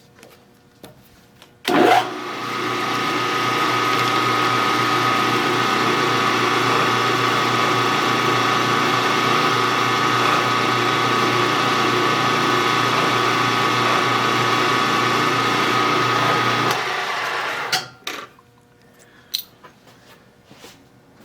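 Milling machine spindle switched on about two seconds in, running steadily with a constant whine for about fifteen seconds while a center drill starts the hole, then switched off and winding down. A few light clicks and knocks follow.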